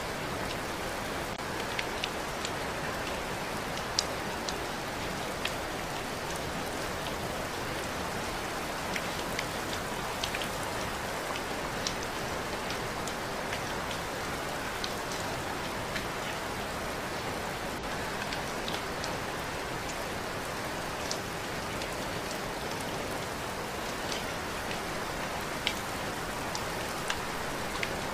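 Steady rain falling, an even hiss with individual drops ticking sharply on a surface here and there.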